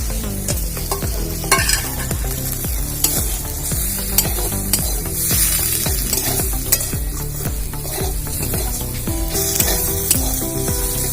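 Boiled potatoes being stirred and fried in spice paste in a kadai: a steady sizzle with the spatula scraping through the mixture, and a few sharp clinks of the spatula against the pan.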